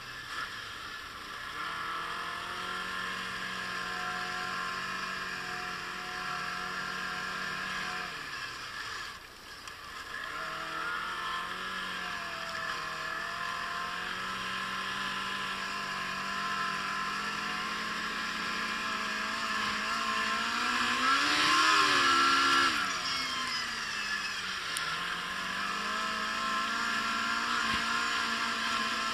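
Yamaha Apex RTX snowmobile's four-stroke four-cylinder engine running under way over snow, with a steady rushing noise over it. The pitch rises and falls with the throttle: it eases off and dips about nine seconds in, climbs to its loudest and highest about three-quarters of the way through, then drops and picks up again near the end.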